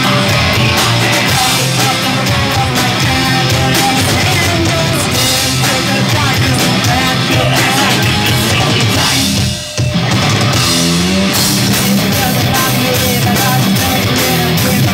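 Live heavy metal band playing loud: distorted electric guitars, bass and drums, with vocals. The band cuts out for a split second about ten seconds in, then comes straight back in.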